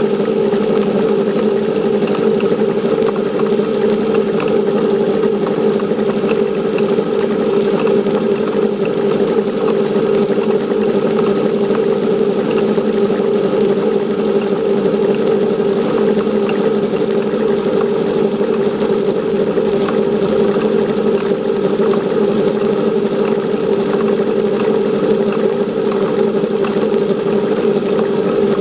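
Metal lathe running steadily while it turns a metal workpiece, its motor and drive making a continuous drone along with the sound of the cut.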